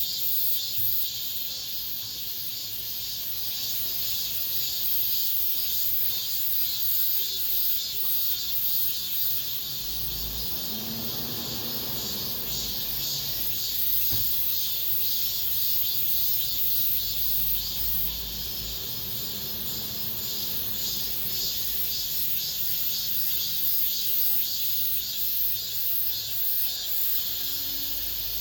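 Cicadas singing in a dense, continuous high-pitched chorus with a fast pulsing beat. A low rumble rises in the middle and fades away about ten seconds later.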